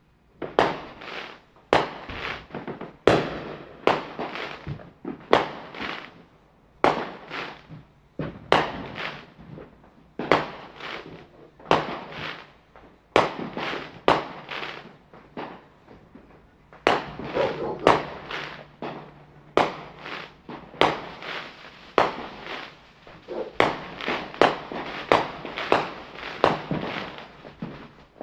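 Fireworks going off in quick succession: sharp bangs about two a second, each trailing off in an echo.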